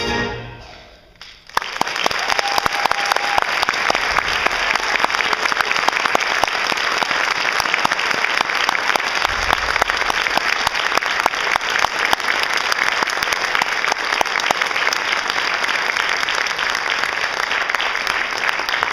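The last chord of a jazz big band dies away, then audience applause breaks out about a second and a half in and goes on steadily.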